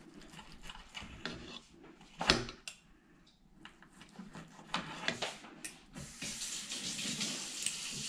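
Steel knife and fork cutting steak on a ceramic plate: short scrapes and clinks of the cutlery against the plate, with one sharp, loud clink about two seconds in. A longer hissing scrape near the end, where the knife saws through the meat.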